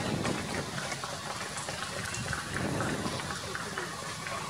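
Steady outdoor street noise, an even crackling hiss with faint scattered ticks.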